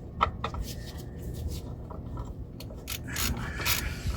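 Hand tools working on metal under the truck's front end: scraping and rubbing, a sharp click about a quarter second in, and a ratchet wrench starting to turn near the end.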